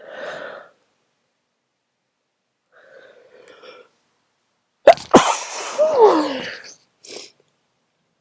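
A person sneezes hard about five seconds in: a sudden explosive burst, then a voiced cry that falls in pitch, over in under two seconds. Two fainter breathy sounds come before it, and a short breath follows.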